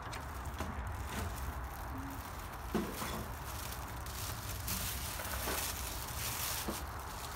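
Handling noise as a window air conditioner is lifted off its support bracket and window sill: scattered knocks and clicks of the plastic casing against the bracket and frame, with rustling of a plastic-wrapped foam seal strip over a steady low hum.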